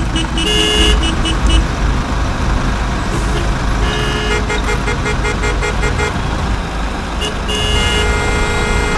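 Traffic-jam sound of road vehicles: a steady low engine rumble with car horns honking over it. There are a few short toots about half a second in, a run of quick beeps from about four seconds, and a longer honk near the end.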